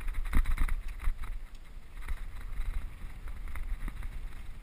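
Wind rumbling on the microphone of a camera riding a mountain bike down a rocky dirt trail, with scattered knocks and rattles from the bike jolting over loose rocks.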